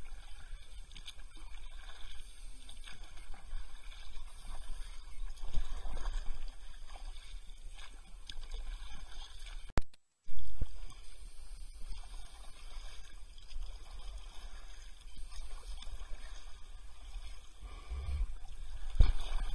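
Kayak on a river: paddle splashes and scattered knocks against the boat over a steady low rumble. The sound drops out for a moment about halfway through.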